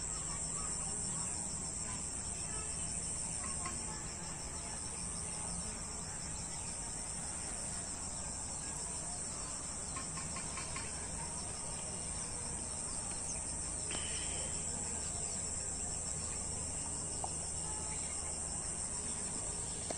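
Steady, high-pitched chorus of insects such as crickets, trilling without a break.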